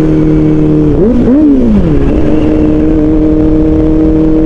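Kawasaki Ninja ZX-4RR's 399 cc inline-four engine through an Austin Racing muffler, running at a steady cruise. About a second in its note swoops down, up and back down, then settles at a slightly different steady pitch.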